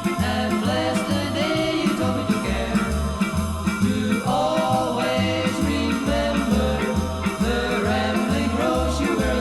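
1960 pop ballad record: the band plays over a steady bass beat of about two pulses a second, with a melody line whose notes slide up and down.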